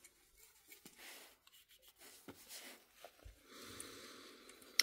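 Faint handling sounds of a soft cloth wiping a small metal diecast model car: light scattered ticks from fingers and the model, a soft rubbing stretch late on, and one sharper click at the end.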